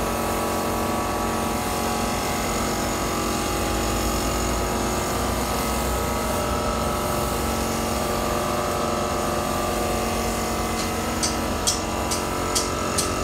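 Paint spray gun hissing steadily as it sprays a coat of paint, over a steady mechanical hum. A few short, sharp hisses near the end.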